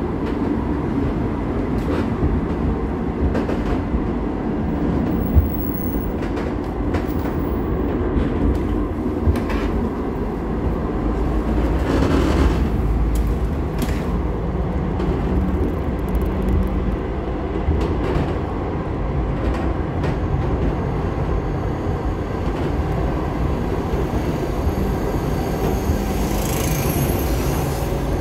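Cologne Stadtbahn light-rail car running along street track, heard from inside the car: a steady rumble of wheels and motors with occasional clacks. A thin, high wheel squeal comes in near the end.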